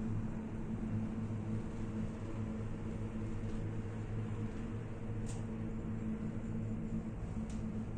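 Steady low hum and rush of a Téléo tricable gondola cabin in motion, heard from inside the cabin, with two faint clicks about halfway through and near the end.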